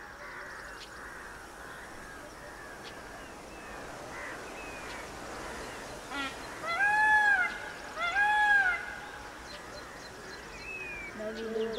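Two loud calls from an Indian peafowl, each rising and falling over about two-thirds of a second, about a second and a half apart, with a brief rattle just before the first. Small birds twitter steadily underneath.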